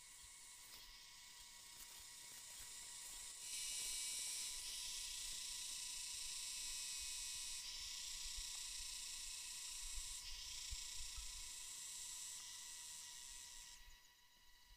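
Insects buzzing in a high, hissing drone that swells sharply about three and a half seconds in and fades near the end, over a faint steady whine.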